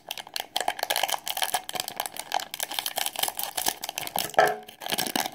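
Foil blind-box bag crinkling and crackling in the hands as it is worked open, a fast run of small crisp crackles.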